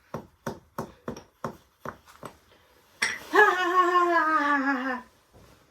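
A run of sharp, regular knocks, about three a second and slowing slightly, then, about three seconds in, a loud drawn-out vocal cry lasting about two seconds and slowly falling in pitch.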